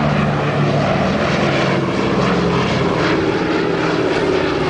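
B-17 Flying Fortress flying past low, its four Wright R-1820 Cyclone radial engines and propellers giving a loud, steady, deep drone.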